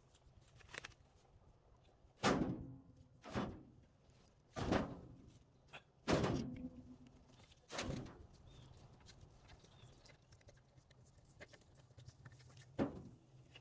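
Cut log pieces tossed one at a time onto a load: five heavy wooden thuds about a second or so apart, each dying away quickly, with one more thud near the end.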